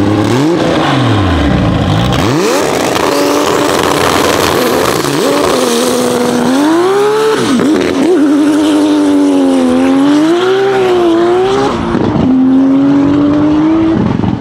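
Tuned Toyota Supra's 2JZ inline-six, exhausting through the hood, revving and then accelerating hard, its pitch rising and falling repeatedly.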